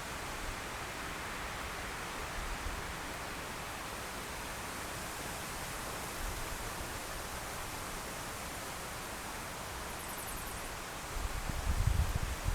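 Steady outdoor hiss of wind through foliage, with gusts thumping on the microphone near the end.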